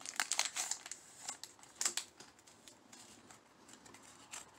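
Faint crinkling of a foil Pokémon booster pack wrapper and soft clicks of trading cards being handled, clustered in the first two seconds, then only a few faint ticks.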